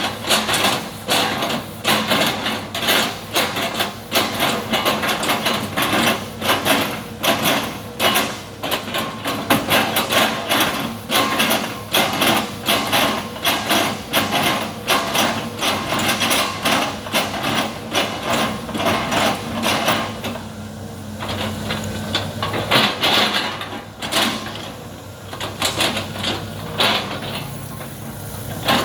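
Excavator engine running under a rapid, continuous clatter of knocks and impacts, which thins out about twenty seconds in to leave the engine running more steadily with only occasional knocks.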